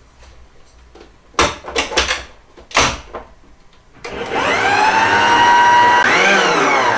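Electric stand mixer: a few clicks and knocks as its head and bowl are handled, then about four seconds in the motor starts with a rising whine and runs steadily, beating cake batter. Near the end its pitch sweeps up and back down as the speed changes.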